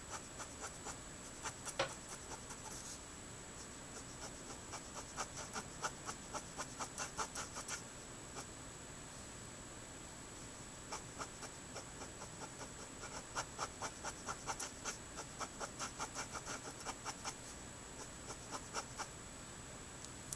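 Letraset Promarker alcohol-marker nib scratching across Neenah Solar White paper in quick short strokes, in runs of about four strokes a second, as the colour is laid down. One sharper click about two seconds in.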